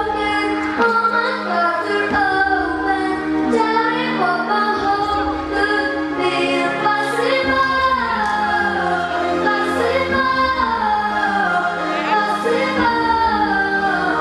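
A young girl singing a song into a microphone over instrumental backing music.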